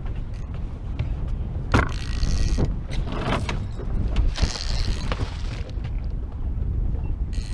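Wind buffeting the microphone on a boat on the water, a steady low rumble, with three louder rushes of noise about two, three and four and a half seconds in.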